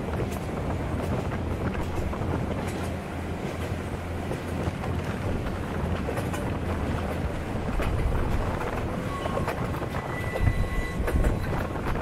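Passenger train running along the track, heard from a carriage window: a steady low rumble with the clack of wheels over rail joints, and a couple of heavier knocks near the end.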